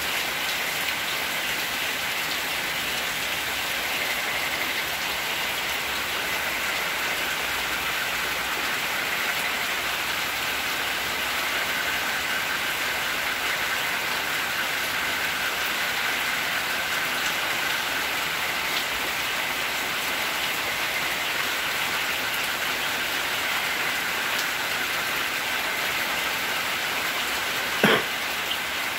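Steady rain falling, with a faint steady high tone underneath. A single short, sharp sound stands out about a second before the end.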